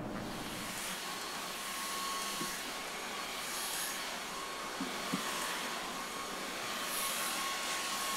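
Stick vacuum cleaner running steadily, a rushing hiss with a thin whine, with a few light knocks as it moves over the floor.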